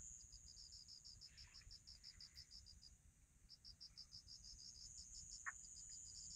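Faint crickets chirping: a steady high trill under a second insect's rapid pulsing chirp, about six chirps a second, which pauses for about half a second around three seconds in. A single faint click comes about five and a half seconds in.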